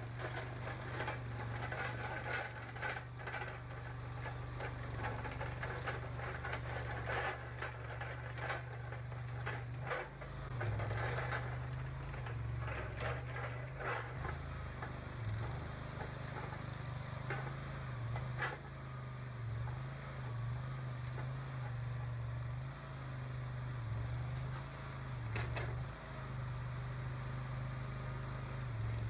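Boxer 427 compact skid steer's engine running steadily, its note dipping again and again as the machine is worked, with scattered clanks and rattles.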